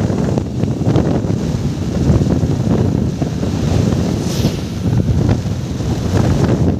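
Wind buffeting the phone's microphone: a loud, uneven low rumble, with a brief high hiss about four seconds in.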